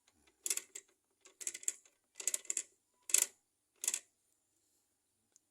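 Metal clicking and rattling from a Honda C100-type four-speed gearbox (Supra, Grand, Legenda, Prima) modified with a reverse gear, worked by hand: about five short clattering bursts a little under a second apart, stopping about four seconds in.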